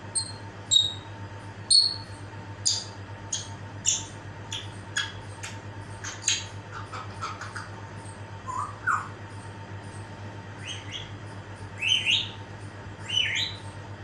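African grey parrot making a string of short whistles, chirps and clicks, with a few rising whistles about halfway through and a louder cluster near the end.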